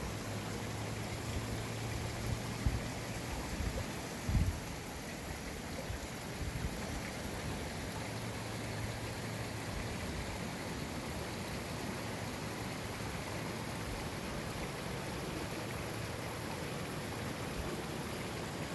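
Shallow creek water running over rocks: a steady rushing hiss of flowing water. A few short low thumps a few seconds in.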